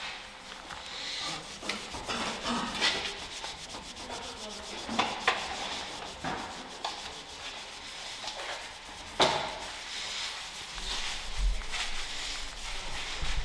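Yellow scouring pad scrubbing a metal brake caliper piston by hand, cleaning and lightly polishing its surface: uneven back-and-forth scratchy strokes, with a few sharp clicks about five and nine seconds in.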